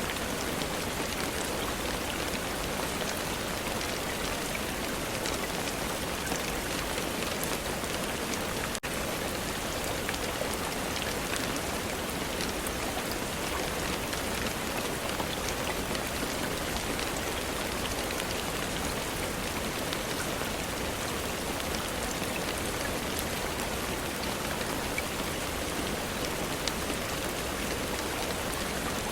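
Steady rain: an even hiss of falling rain with a dense patter of scattered drop ticks on a surface. There is a split-second dropout about nine seconds in.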